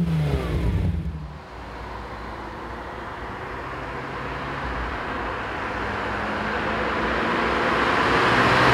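Ferrari 328 GTS's 3.2-litre V8 running as the car approaches at a steady speed, with engine and tyre noise growing gradually louder as it nears.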